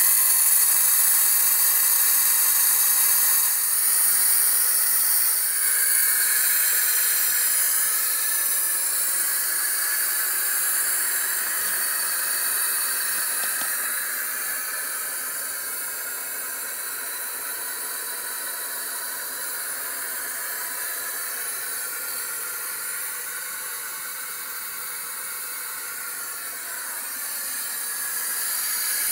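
Air rushing out of four tires at once through the open valve of a homemade four-tire deflation hose manifold, airing them down from about 30 psi: a steady, loud hiss that slowly fades.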